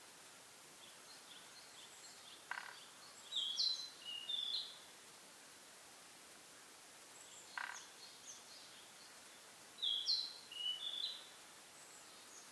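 A small bird singing two similar phrases about five seconds apart, each a short lower note followed by a quick run of high chirps.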